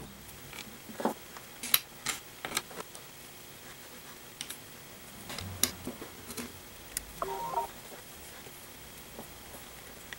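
Sparse light clicks and taps of small metal parts and a hex key being handled on a power-feed housing during reassembly, with a short squeaky note about seven seconds in.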